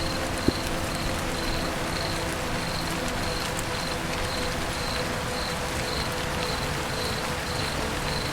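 Steady rain falling on a roof, with an insect, like a cricket, chirping evenly about twice a second. There is one sharp click about half a second in.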